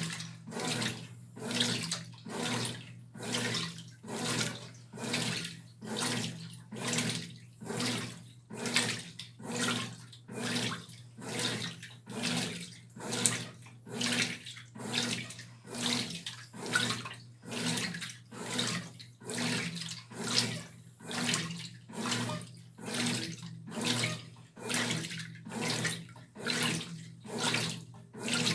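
Brastemp Tira Manchas Pro 12 kg top-loading washing machine agitating a load in water: rhythmic sloshing swishes, about four every three seconds, over a steady low motor hum.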